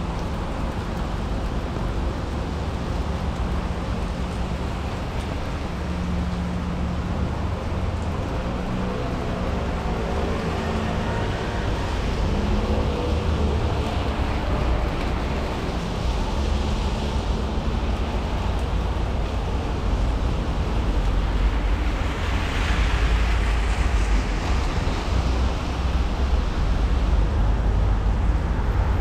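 Rainy street ambience: vehicles passing on a wet road, their tyre hiss swelling twice in the second half, over a steady low rumble.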